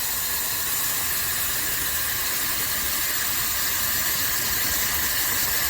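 Ionic hair dryer running steadily: a loud rush of blown air with a thin high whine from its motor.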